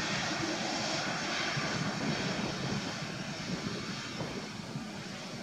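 Boeing 777 jet engines on the landing rollout, an even rushing noise that slowly gets quieter as the airliner decelerates with its spoilers up.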